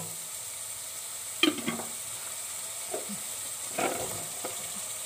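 Minced meat with tomato paste frying in a stainless steel pot, a steady sizzle, with a few short knocks and clatters, the loudest about one and a half seconds in. Diced carrots are tipped into the hot pot near the end.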